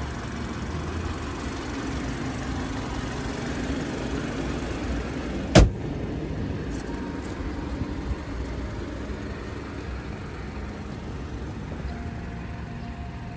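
BMW X3 bonnet shut with a single sharp slam about five and a half seconds in, followed by a couple of faint clicks, over a steady low rumble.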